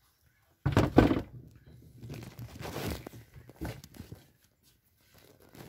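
Two sharp knocks about a second in, then rustling and scraping and one more knock: a plastic engine cover being handled and set aside.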